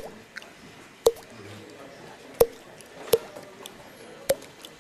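Mouth-made sound effect: a series of sharp pops, each with a short note, about one a second.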